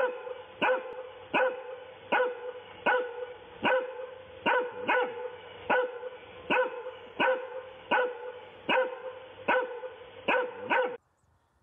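Fluffy long-haired dog barking over and over in a steady rhythm, about one bark every three-quarters of a second, stopping shortly before the end.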